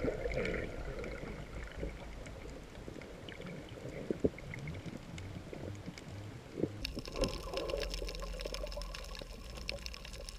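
Water heard through a camera filming underwater: a muffled, noisy wash of moving and bubbling water with a few sharp pops. About seven seconds in, the sound changes and a faint steady hum joins it.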